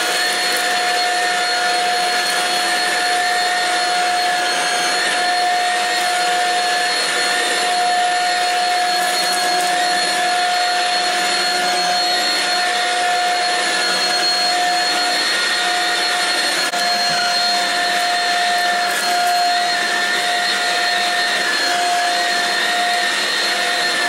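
Shark Rocket HV382 corded stick vacuum running steadily while being pushed over carpet: a constant high motor whine over the rush of air.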